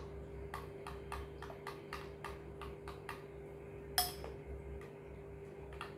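A spoon clinking against a glass bowl while stirring yogurt mixed with chopped vegetables: light ticks about three or four a second, thinning out after about three seconds, with one louder clink about four seconds in.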